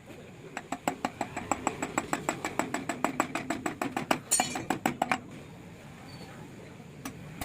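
Rapid, even metallic clicking, about eight clicks a second, from hand work on a Yamaha RX 135 two-stroke engine being reassembled, with a short scraping rasp about four seconds in and a pause before the clicking starts again near the end.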